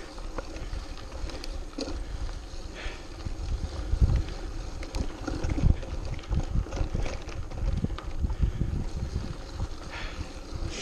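Mountain bike rolling over a rocky dirt trail: tyre noise with the chain and frame rattling and clicking over the bumps, and wind buffeting the microphone. Two harder knocks come about four seconds in and just before six seconds.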